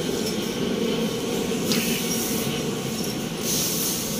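Steady low rumble, with short scraping sounds about two seconds in and again near the end as the clipped-on bottom cup of an oil-bath air filter is worked loose.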